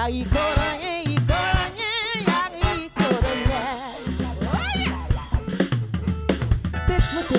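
Live afro-funk band: a woman sings lead, holding notes with wide vibrato and swooping up in pitch near the middle, over a drum kit, electric bass and guitar.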